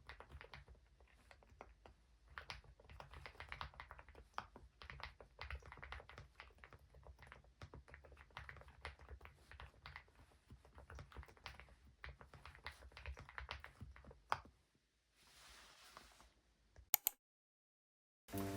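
Steady typing on an Epomaker Galaxy80 keyboard with Epomaker Nude Rosa silent switches and MDA-profile keycaps: soft, muted key presses in quick irregular runs. The typing stops about 14 seconds in, followed by a brief faint hiss and two sharp clicks, and music begins right at the end.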